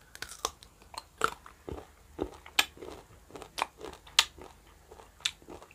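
Close-miked biting and chewing of crunchy food: a run of sharp, irregular crunches.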